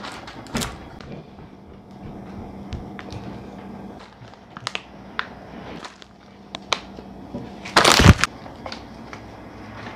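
Plastic bag of shredded mozzarella crinkling in the hand as cheese is sprinkled out, with scattered light clicks and a loud burst of crinkling about eight seconds in. A faint steady hum runs underneath.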